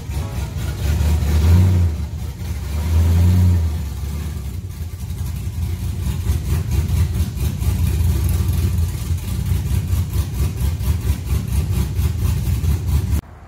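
2001 Chevy Silverado's engine running through long-tube headers and a 3-inch straight pipe, very loud. It is revved twice in the first few seconds, then runs on with a steady, rapid exhaust pulse, and cuts off suddenly near the end.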